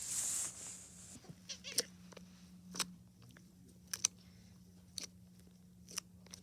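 Slime being squished and worked by hand: a soft squishing hiss at first, then a run of sharp wet clicks and pops about once a second.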